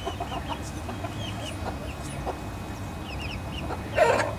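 Small flock of silkie chickens clucking and chirping, with many short, repeated calls and one louder call about four seconds in.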